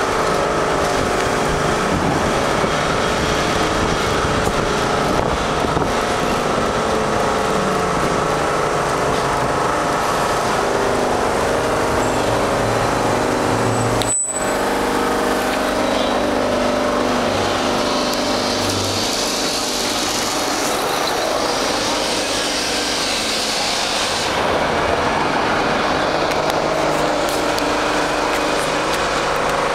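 Lisbon Tram 28 tramcar running along its street rails, heard from inside by an open window: a steady run of motor and wheel-on-rail noise with several held tones. The sound briefly cuts out for a split second about halfway.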